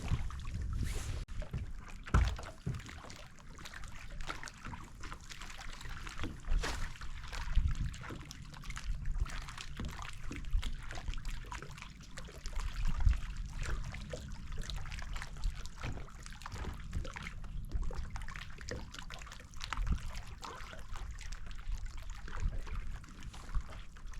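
Water lapping and trickling against a fishing boat's hull, with scattered small knocks and clicks and a low rumble underneath.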